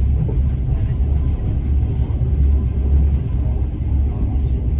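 Passenger train running, heard from inside the carriage: a steady low rumble of wheels on rails.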